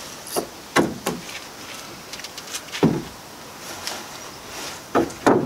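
A handful of knocks and scrapes from a large, lightweight foam-and-fibreglass boat-roof panel being handled and carried through a workshop doorway.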